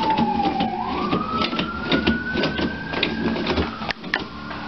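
Toilet paper rustling and the roll clicking and rattling on its holder as a cat paws and tugs at it. Over this runs one long clear tone that slides down in pitch during the first second, then climbs back up and holds steady.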